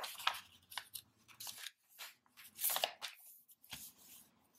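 A sheet of paper rustling and crinkling as hands fold it in half lengthwise and smooth the fold flat, in a series of short, irregular rustles.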